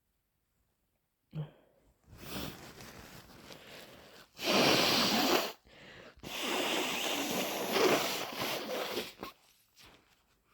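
A person blowing their nose hard: a brief sound about a second in, a softer stretch, then a loud blow of about a second and a longer blow of about three seconds.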